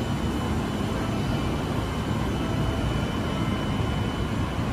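Steady rumble and hum of an E531-series electric train at a station platform, with a faint steady high whine over it.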